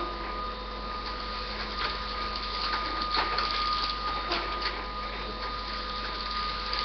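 Dry-erase marker writing on a whiteboard: a series of short, irregular squeaky scratching strokes. A steady faint tone runs underneath.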